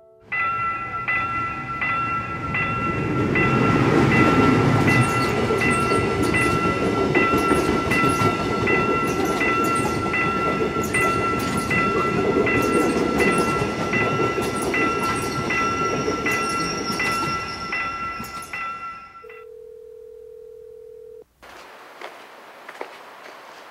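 Railway level-crossing warning bell dinging in an even rhythm, about three strikes every two seconds, over the rumble of a passing train. Both stop abruptly about 19 seconds in, followed by a steady telephone tone for about two seconds.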